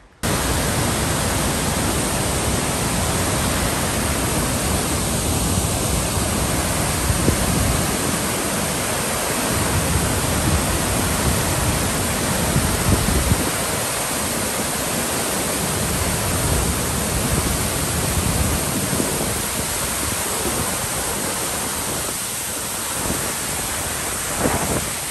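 Large waterfall pouring onto rocks close by: a loud, steady rush of falling water.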